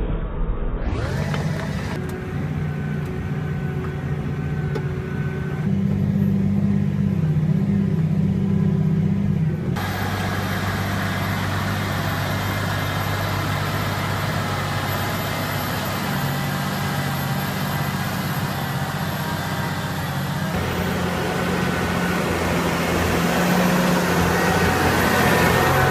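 Case Puma 200 CVX tractor's six-cylinder diesel engine droning steadily at full load while pulling a three-furrow plough through heavy wet clay. The engine tone jumps abruptly three times.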